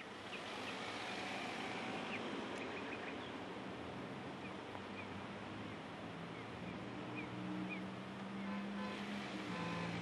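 A car driving past on a street: steady traffic noise with a few short high chirps. About seven seconds in, a low steady hum with a few pitched tones sets in.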